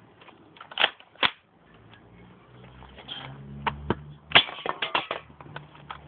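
JT3A spring-powered airsoft BB shotgun being handled, cocked and fired at a drinks can at point blank: sharp clicks and clacks, two loud ones about a second in and a quick cluster around four to five seconds in.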